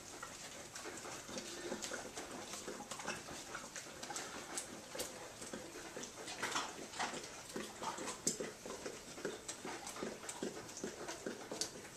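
A Weimaraner licking yogurt out of a plastic tub: a continuous run of quick, irregular wet lapping and smacking sounds as her tongue works inside the tub.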